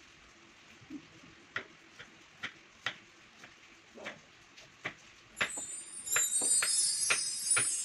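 Kitchen knife clicking against a cutting board as vegetables are cut, in irregular single clicks about once or twice a second. About five seconds in, a louder bright, tinkling chime jingle starts and carries on.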